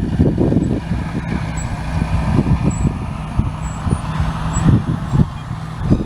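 A vehicle engine running steadily with a low hum, with irregular low rumbling and knocks over it.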